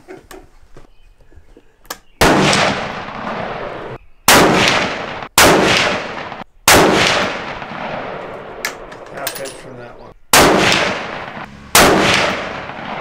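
Six rifle shots from a scoped hunting rifle, each a sharp crack trailing off in a long echo. Two of them come only about a second apart.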